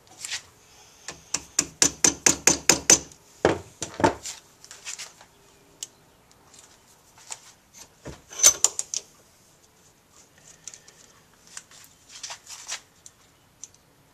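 Small hammer tapping on a motorcycle carburetor's metal body in a vise: a quick run of about ten light taps at roughly five a second, then a few heavier knocks, a louder cluster of strikes later, and softer clicks near the end.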